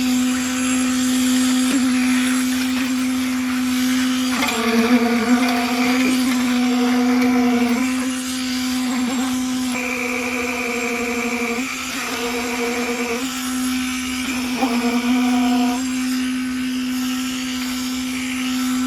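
A machine's motor running with a steady, high-pitched hum, its pitch sagging briefly a few times as it takes load.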